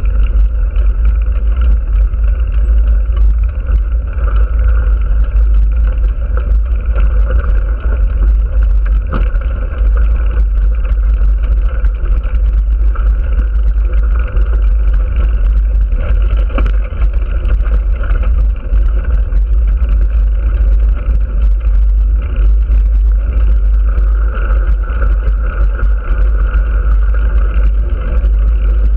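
Wind rushing over an action camera's microphone as it moves along the road at speed: a loud, steady rumble with a steady hum running through it.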